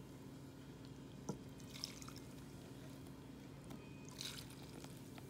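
Hot melted jaggery-and-butter syrup being poured and scraped out of a pan onto coarse wheat flour: faint wet pouring and squishing, with a sharp click just over a second in, over a low steady hum.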